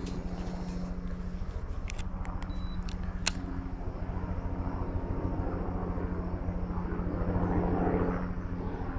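Boat motor running steadily with a low, even hum, and a couple of sharp clicks about two and three seconds in.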